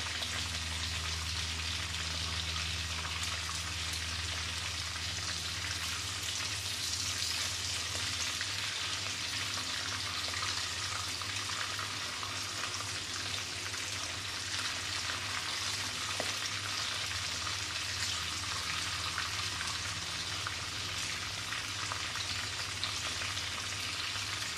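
Battered prawns deep-frying in hot oil in a wok: a steady sizzle with a low hum underneath. The prawns are about four minutes into frying and close to done.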